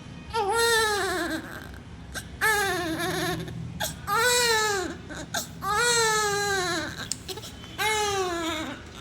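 Premature newborn of about 1.5 kg crying: five cries of about a second each, every one falling in pitch, with short pauses for breath between.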